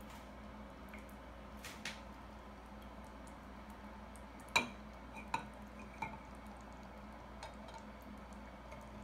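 Glassware clinking as a small beaker is handled against a water-filled glass tumbler. There is one sharp clink about four and a half seconds in, then two lighter ones close after it and a few faint taps, over a low steady hum.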